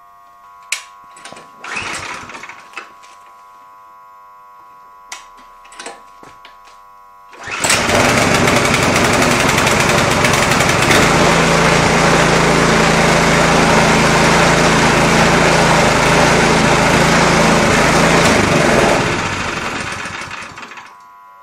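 A few light knocks and rustles, then, about seven and a half seconds in, the Ruris Expert 540 snowblower's four-stroke engine, freshly refilled with oil, starts suddenly and runs steadily and loud. Near the end it dies away.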